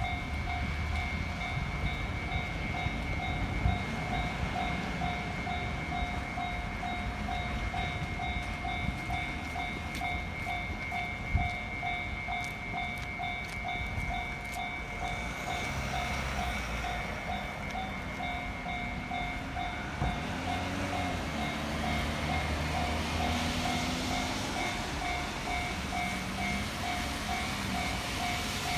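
Japanese level-crossing warning bell ringing in a steady repeating ding over road traffic noise. A train passes, its wheels clicking over the rail joints for several seconds near the middle.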